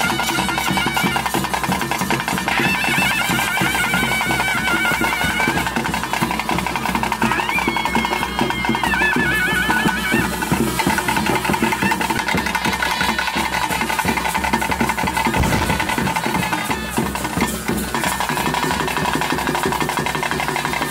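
Traditional bhuta kola ritual music: a reed pipe plays a wavering, gliding melody over a steady drone, with continuous drumming beneath.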